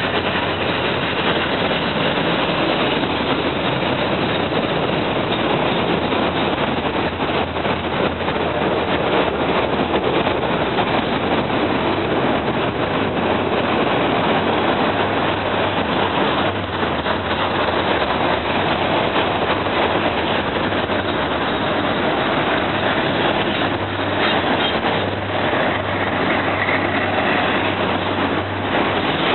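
A Norfolk Southern freight train rolling past: a steady noise of wheels on rails and cars going by, with a faint low engine hum.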